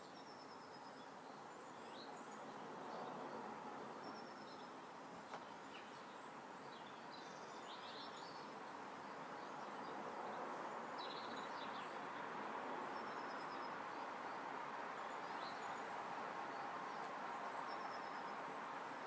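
Outdoor ambience: small birds chirping in short scattered calls over a steady hum of background noise that slowly grows louder.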